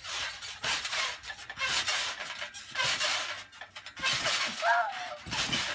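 Trampoline being jumped on: repeated bursts of rattling and creaking from the mat and springs, about one or two a second, with a short high voice sound near the end.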